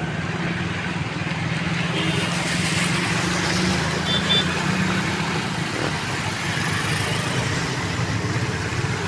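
A motor vehicle's engine running with a steady low hum over an even wash of hiss; the hum fades about six seconds in.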